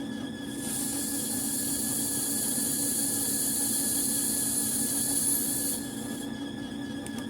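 A steady high hiss starts about half a second in and cuts off after about five seconds, over a constant low hum.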